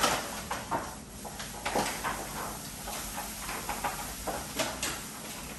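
Kitchen clatter: scattered light knocks and clinks of utensils and bowls on the counter, irregularly spaced.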